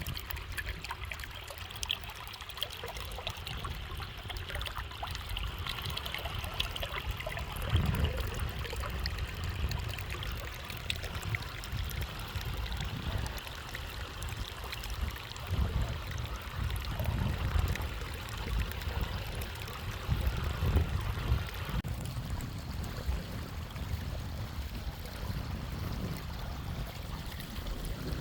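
Rain falling and rainwater running and trickling, with gusts of wind buffeting the microphone as an uneven low rumble that swells several times.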